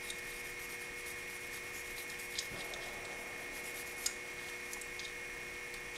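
Faint rubbing of a hand-turned pin vise drill reaming out the pivot hole of a straight razor's scale, with a couple of small clicks, over a steady electrical hum.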